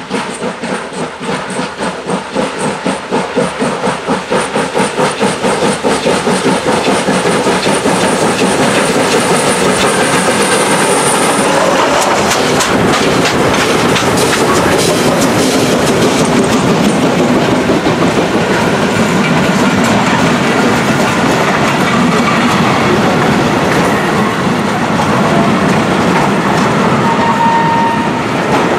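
Steam locomotives of the FS Gr. 740 class working a train: their exhaust beats quicken over the first several seconds, then run together into a steady loud rumble with the clickety-clack of wheels over rail joints.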